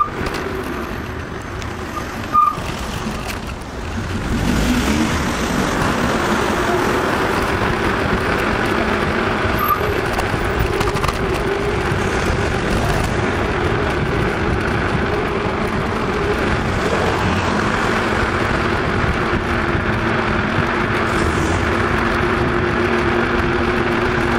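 Bicycle tyres humming on asphalt while riding, a steady hum over road and traffic noise. A short knock about two seconds in, and a few brief high chirps near the start and about ten seconds in.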